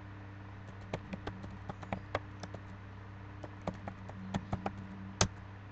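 Typing on a computer keyboard: two quick runs of key clicks, then one louder click about five seconds in, over a steady low hum.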